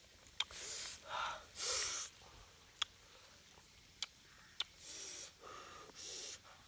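A person eating spicy grilled bamboo shoots, taking about six short, sharp breaths or sniffs, with crisp mouth clicks between them.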